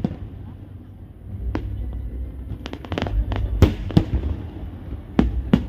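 Aerial fireworks bursting: a string of sharp booms, with a quick run of crackling pops near the middle and a low rumble underneath.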